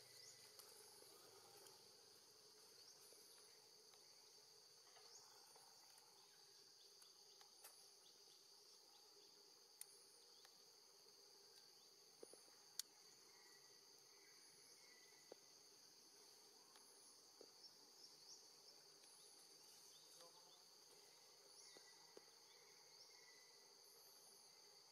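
Faint, steady chorus of insects: a high, even buzzing trill, with a few scattered soft clicks.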